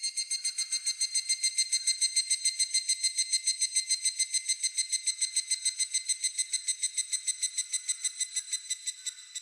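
Higurashi (evening cicada) calling: a ringing, rapidly pulsed trill of about nine notes a second, fading a little near the end.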